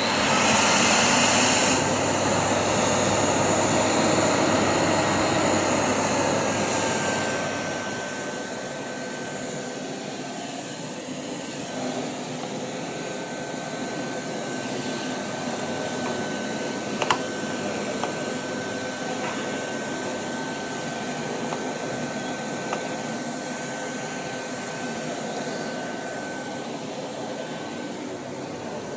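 Vintage Miele S224 canister vacuum cleaner running with a steady whine. It is loud for the first several seconds, then drops to a lower, steady level with a thin high tone. There are a few light clicks around the middle.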